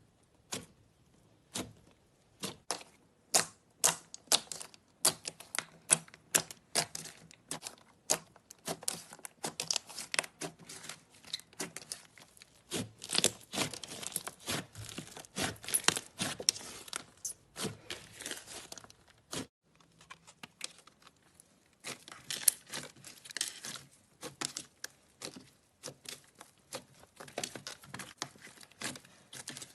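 Slime being squeezed and stretched by hand, giving many sharp clicks, pops and crackles. The crackling grows dense near the middle, stops briefly, then starts again.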